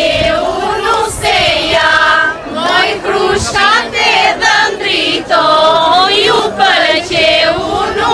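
A group of women singing together, with wavering held notes in phrases of a second or two and short breaks between them.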